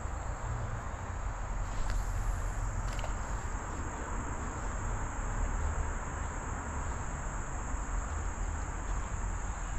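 Steady high-pitched drone of singing insects over a constant low rumble, with a couple of faint clicks about two and three seconds in.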